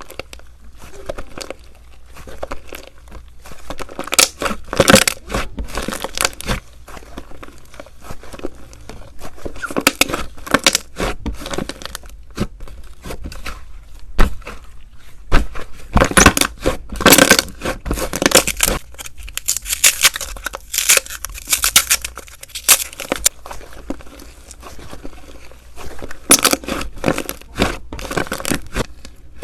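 Slime being squeezed, stretched and pressed close to the microphone, giving irregular sticky crackles, pops and tearing sounds in dense clusters.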